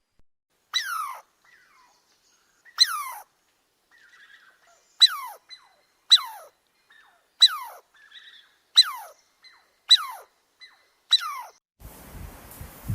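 An animal calling: eight short, high cries that each fall sharply in pitch, spaced about one to two seconds apart. A rushing noise like wind on the microphone starts near the end.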